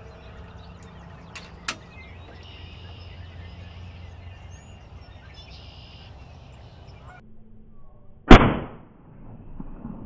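A single shot from a PCP air rifle about eight seconds in: one sharp, loud crack with a short tail. Before it there is a low, steady background with a few faint clicks.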